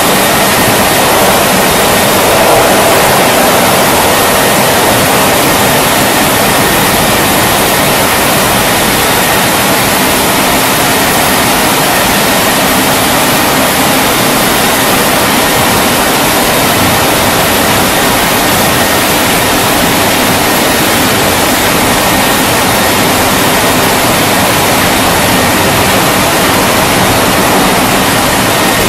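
Wesumat rollover car wash gantry running with a loud, steady rushing noise as it travels along the car, with a faint high steady tone underneath.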